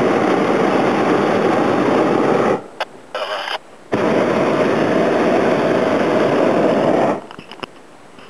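Hot-air balloon propane burner firing in loud, roaring blasts. A long blast stops suddenly, a short one follows, then another long blast cuts off a little before the end.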